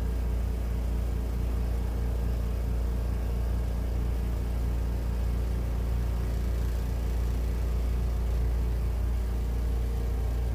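Kuppet 10 lb twin-tub portable washer's spin dryer running at speed, a steady low motor hum as the spin basket spins the water out of a load of clothes.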